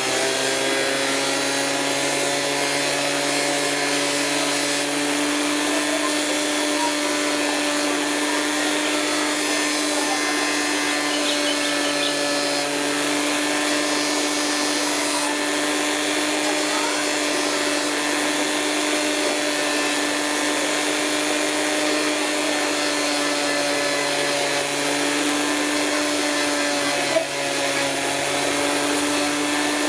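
Electric motor of a gemstone grinding and polishing machine running at a steady speed, a constant hum with a rasping hiss over it as an agate stone is worked on the wheel. Near the end there is a brief knock.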